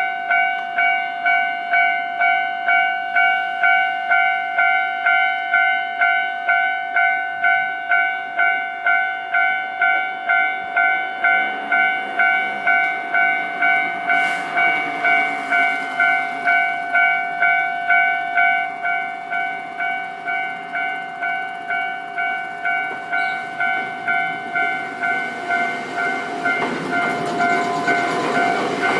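Japanese level-crossing warning bell ringing in an even beat, a little under two strokes a second. A Nankai electric train passes over the crossing, its running noise growing from about halfway through and loudest near the end.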